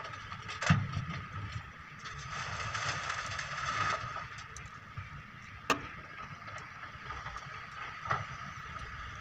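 Excavator diesel engine running steadily, with three sharp knocks spread through.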